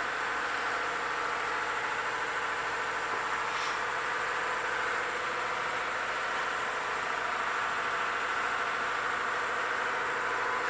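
Shop air compressor running steadily, a continuous mechanical hum with a fixed pitch.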